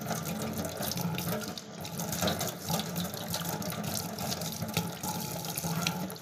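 Tap water running into a stainless steel sink and splashing over a piece of galangal root as it is rinsed and rubbed clean by hand under the stream.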